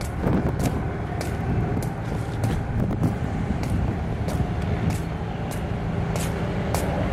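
Gusting wind buffeting the microphone with a low rumble, under a steady low engine-like hum that comes up about five seconds in, and scattered sharp clicks.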